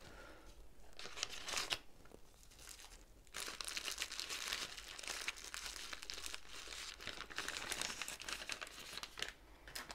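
Small clear plastic zip-lock bags crinkling as they are handled and packed away. The crinkling comes in a short spell, then pauses briefly, then goes on almost steadily from about three seconds in.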